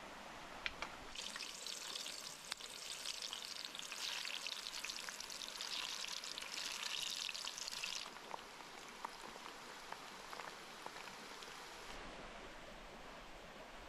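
Small river running steadily, with a louder high hiss that starts about a second in and stops suddenly about eight seconds in, and a few light clicks.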